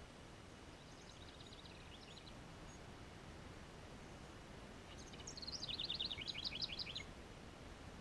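A wren singing two rapid, bubbling trill phrases: a faint one about a second in and a louder one about five seconds in, a fast run of high notes stepping down in pitch over about two seconds.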